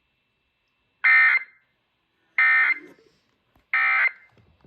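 Emergency Alert System end-of-message data bursts: three short, loud, buzzy digital bursts about a second and a third apart, marking the close of the relayed alert.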